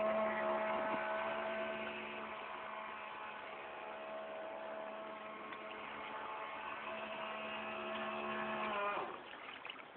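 Small motor of a home-made radio-controlled boat giving a steady humming whine, cutting off suddenly about nine seconds in.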